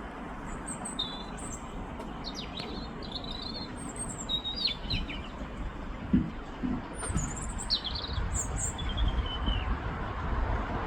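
European robin singing: thin, high warbling phrases in short separate bursts with pauses between, over a steady low background rumble and hiss. A couple of brief low thuds come about six to seven seconds in.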